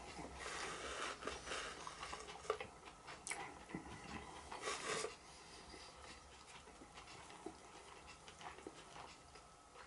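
Faint close-up chewing of a breaded chicken burger: soft wet mouth sounds and small crunches, quieter after about five seconds.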